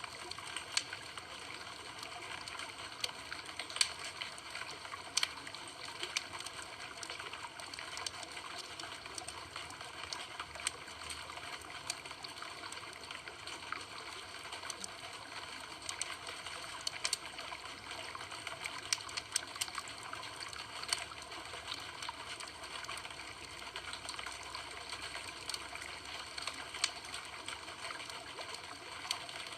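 Campfire burning: a steady hiss with frequent, irregular crackles and pops.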